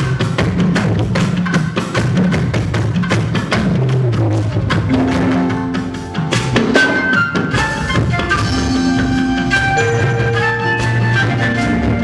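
Music with a busy, steady drum beat; held organ-like keyboard notes come in about five seconds in.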